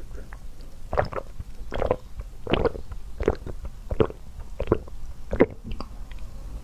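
A person gulping a strawberry fruit drink from a glass mug, close-miked: about seven swallows at an even pace, roughly one every three quarters of a second, starting about a second in.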